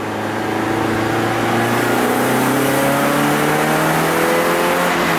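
Car engine heard from inside the cabin, accelerating hard through a gear with its pitch rising steadily. The car is being tested for an intermittent choking misfire under load.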